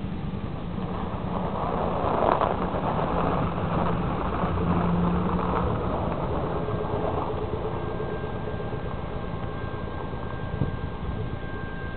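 Diesel locomotive of a Norfolk Southern train running as it approaches, a steady low hum and rumble, with wind buffeting the microphone and swelling about two seconds in. A faint steady high tone comes in about halfway through.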